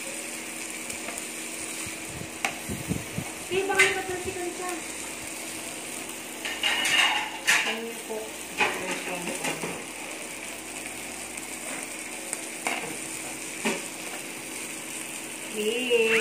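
Marinated pork and fish balls sizzling steadily on an electric samgyupsal grill pan, with metal tongs clicking and scraping against the pan and plates now and then.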